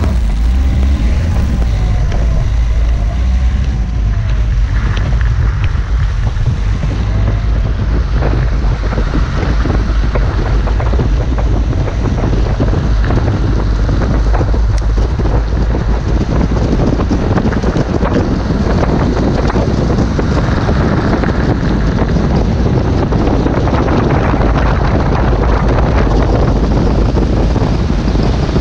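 Wind blasting the camera microphone during a high-speed downhill run, a heavy steady low rumble with a constant crackle from the road.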